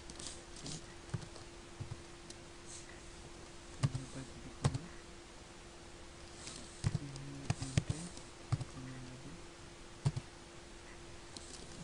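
Computer keyboard typing: irregular keystrokes in small clusters with pauses between them, over a steady low hum.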